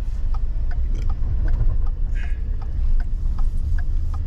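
Low, steady rumble inside a moving car's cabin, with strong wind buffeting the vehicle. A light, regular ticking runs over it at a little over two ticks a second.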